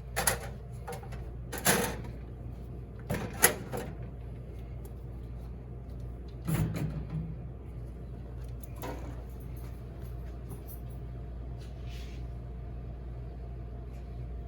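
Several sharp knocks and clatters, about five in the first nine seconds, from handling and fitting parts inside a soap vending machine, over a steady low hum.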